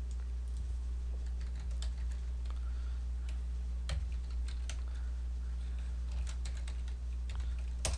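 Typing on a computer keyboard: scattered keystrokes, with one louder click near the end, over a steady low hum.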